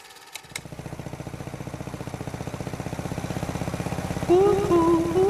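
A motorcycle engine starts with a couple of sharp clicks and runs with a fast, even pulsing beat that grows steadily louder. About four seconds in, a music melody comes in over it and is louder than the engine.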